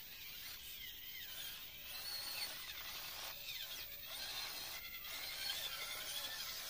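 Faint electric motor and gear whine of a radio-controlled scale crawler, rising and falling in pitch as it drives through a shallow stream, over running water.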